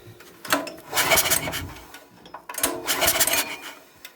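Recoil starter cord of a small generator engine pulled twice, each a whirring rasp about a second long, about two seconds apart, turning the engine over without it firing to check that the valves are opening and closing.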